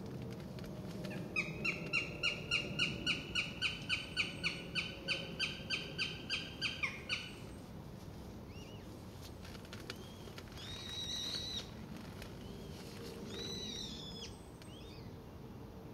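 Northern goshawk giving its rapid kek-kek-kek cackle, about twenty sharp, evenly spaced notes over some six seconds. A few shorter, higher calls follow near the end.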